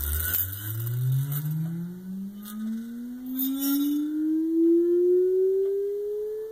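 Sentek Dynamics miniature electrodynamic vibration shaker running a sine sweep: one steady tone rising from a low hum to a higher pitch, with a brief buzz about halfway through.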